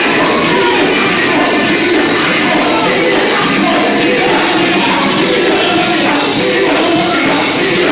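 Gospel group singing over loud band accompaniment.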